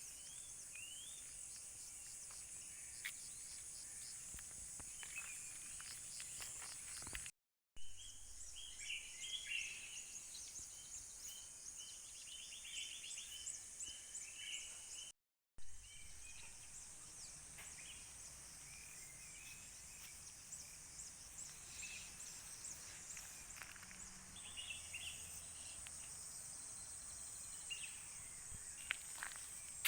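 Morning birdsong: several small birds chirping on and off over a steady, high-pitched buzz of insects. The sound cuts out completely twice, briefly.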